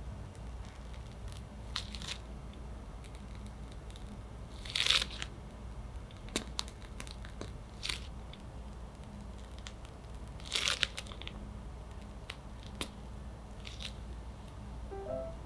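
A plastic piping bag of chocolate whipped cream crinkling and rustling as it is squeezed to pipe rosettes. There are a few brief crackly rustles a few seconds apart, the loudest about five seconds in and again near eleven seconds, over a low steady hum.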